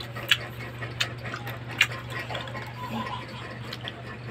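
Irregular wet clicks and smacks of a mouth biting and chewing grapes off the bunch, the three loudest in the first two seconds, over a steady low hum.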